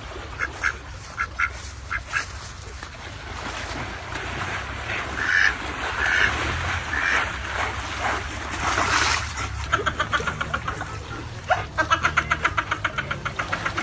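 Domestic ducks quacking: scattered single quacks at first, louder calls in the middle, then a fast run of quacks, several a second, near the end.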